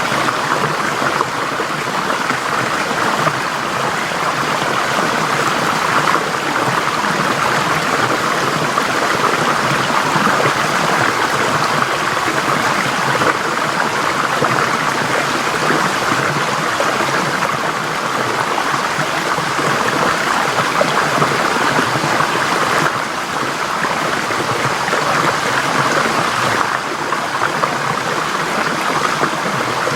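Forest stream flowing steadily over rocks, a continuous rush and gurgle of water.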